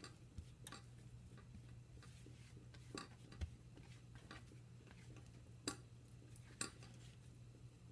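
Near silence: room tone with a steady low hum and about five faint, short clicks as fingers pinch and press soft dough on parchment paper over a countertop.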